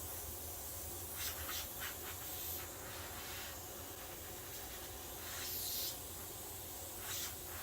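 Compressed air hissing steadily from a small leak at a scuba regulator's fitting on a pressurised tank, with a few brief louder hisses or handling noises, the longest about five and a half seconds in.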